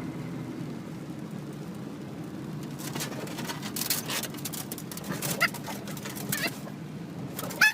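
A dog whimpering in a few short high-pitched whines in the second half, with scattered light clicks, over a low steady hum.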